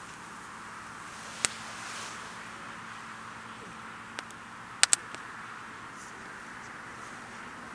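Wood campfire crackling, with a sharp pop about a second and a half in and a loud double pop near the middle, over a steady rushing hiss.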